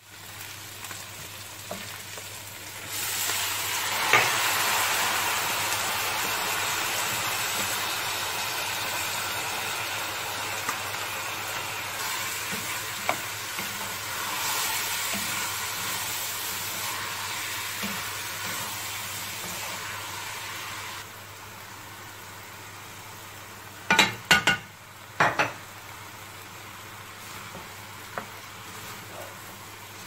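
Rice, minced meat and peas frying and sizzling in a hot nonstick pot while being stirred with a wooden spatula; the sizzle starts a few seconds in and drops away about twenty seconds in. A few sharp knocks follow near the end.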